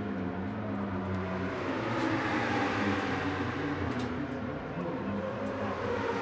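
Steady drone of racing motorcycle engines running on the circuit during the race, with a few sharp faint clicks over it.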